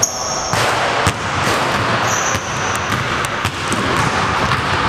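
A basketball bouncing a few times on a hardwood gym floor, with short high sneaker squeaks near the start and about two seconds in, over a steady hiss of room noise.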